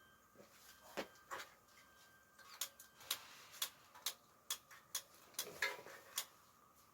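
Wood fire crackling: a string of irregular sharp snaps and pops from burning firewood, several a second at times.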